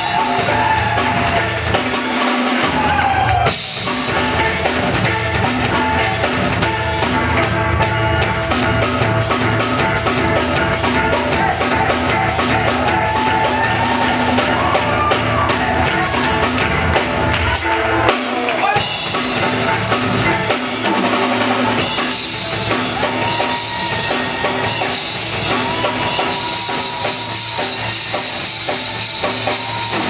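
Steel orchestra playing: many steel pans carrying the melody and chords over a steady drum beat, the deep bass dropping out for a couple of seconds about two-thirds of the way through.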